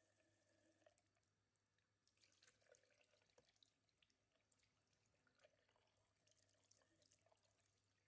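Very faint water running from a bathroom sink tap over hands being washed, with small splashes and drips.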